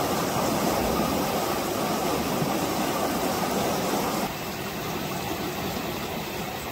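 Muddy flash-flood water rushing across a river bed, a steady noisy rush. About four seconds in it drops abruptly to a quieter rush.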